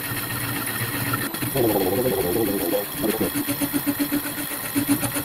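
A slitting saw cutting a slot in a metal clamping block on a Holbrook C8 centre lathe, running slowly in back gear. There is a steady machine hum with a regular pulsing, and a wavering squawk from the cut comes in about a second and a half in and lasts about a second.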